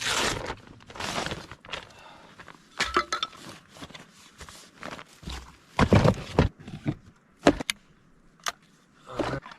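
Gear being handled: a series of short rustling scrapes and a few sharp clicks and knocks, about two-thirds of the way through.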